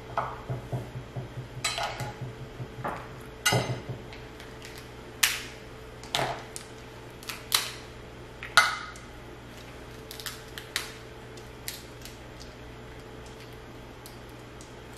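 Eating king crab legs: irregular sharp cracks and clicks of shell and utensils against dishes. They are busiest in the first nine seconds and thin out after, over a steady low hum.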